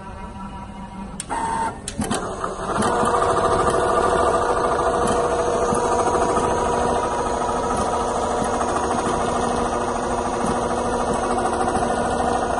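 Richpeace CNC pattern sewing machine stitching leather held in a clamp frame. It hums quietly for the first second, gives a few clicks and a short whine, and then from about three seconds in runs steadily at full stitching speed, a fast even machine sound.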